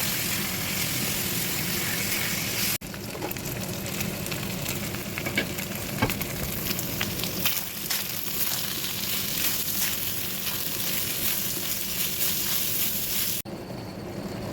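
Chicken stir-fry sizzling in a hot pan, with scattered sharp clicks and scrapes of a utensil stirring it. The sizzle breaks off abruptly for a moment about three seconds in and again near the end.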